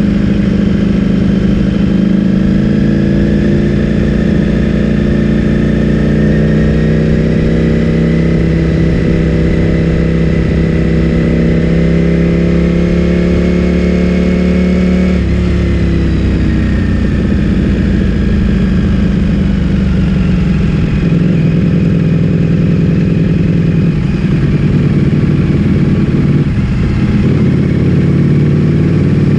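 Ducati Streetfighter V4S V4 engine through an Akrapovic full-system exhaust, heard from on board the moving bike. Its note climbs steadily for about thirteen seconds under throttle. About halfway through the throttle closes and the pitch falls away as the bike slows, and it then runs on at lower revs.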